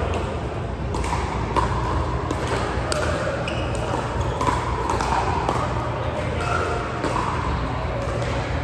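Murmur of background voices in a large room over a steady low hum, with a few sharp clicks or knocks; the loudest is about a second and a half in.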